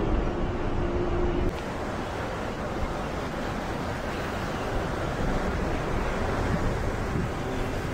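Steady rush of tyre, road and wind noise from inside an Ashok Leyland coach moving on a rain-wet road, with a steady engine tone for the first second and a half. There the sound cuts to a quieter, even rush.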